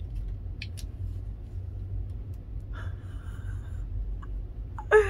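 A woman's excited vocal gasp near the end, sliding down in pitch, after a few seconds of faint breathing over a steady low hum.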